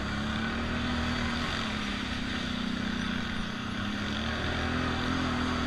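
ATV engine running under throttle while riding a dirt trail, its pitch dipping and rising with the throttle, over a steady rushing noise.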